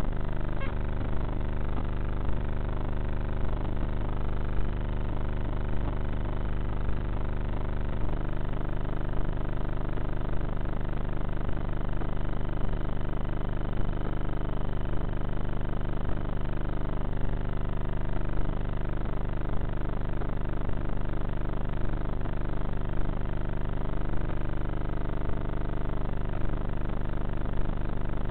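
Onboard sound of a Bixler foam RC plane in flight: its electric motor and propeller running steadily, the pitch drifting up and down several times with throttle and manoeuvres.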